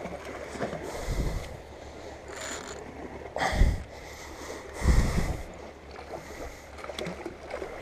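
Wind buffeting the microphone in three gusts, about a second, three and a half and five seconds in, over a steady low rumble and the wash of the sea.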